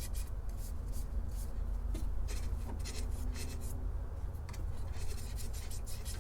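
Microfiber cloth rubbing beeswax onto a turned wooden mushroom, a run of short scratchy strokes, over a steady low hum.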